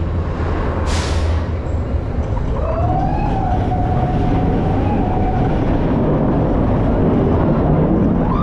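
Roller coaster train running on its track: a loud, steady rumble, a short rush of noise about a second in, and a long squeal that rises and then holds, with another rising squeal near the end.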